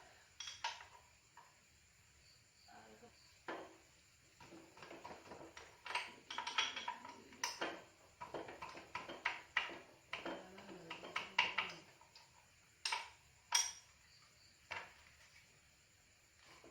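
Metal tools and motorcycle parts being handled: irregular light clinks, knocks and clatter, busiest in the middle, then a few separate sharp clinks toward the end.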